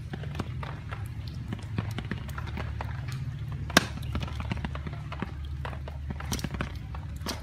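Meat cleaver chopping eel into pieces on a wooden cutting board: irregular knocks of the blade on the wood, with one much louder chop a little under four seconds in.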